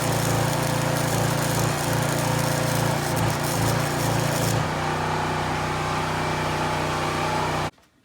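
Steady running of a machine with an even hum and a hiss. The hiss eases partway through, then the whole sound cuts off abruptly near the end.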